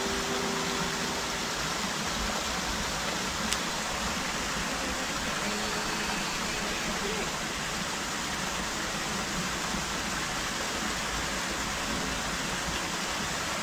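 Steady rushing hiss of running water. Tones from fading music carry into the first second, and there is a single small click about three and a half seconds in.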